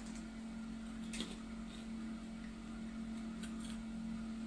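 Popcorn being chewed, a few faint crunches over a steady low hum.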